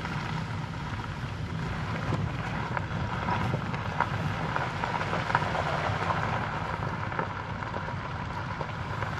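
Vehicle driving slowly, a steady low rumble of engine and tyres with faint scattered ticks.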